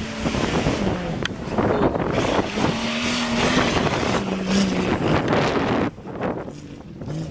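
Off-road race vehicle engines revving and running under load, their pitch climbing and falling, with wind buffeting the microphone. The engine noise drops away suddenly about six seconds in.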